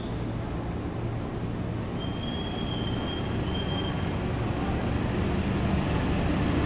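Diesel locomotive hauling a container freight train, apparently fully loaded, approaching with a steady engine rumble that grows gradually louder. A faint high steady tone sounds briefly about two seconds in.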